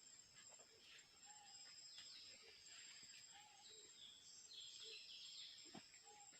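Faint outdoor ambience: a steady high-pitched insect drone, with a few short falling chirps and brief mid-pitched calls from birds.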